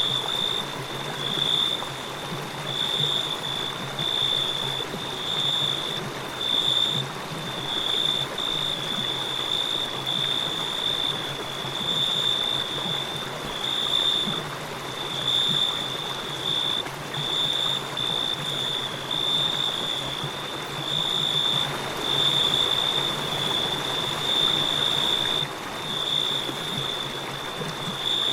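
Crickets chirping in a high, pulsing trill, about one pulse a second, over the steady rush of a flowing stream.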